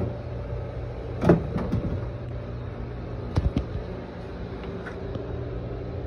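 Steady mechanical hum of a running Seresco pool dehumidifier, its compressor and blower, with a few knocks: a loud one about a second in and a pair of sharp clicks about halfway through.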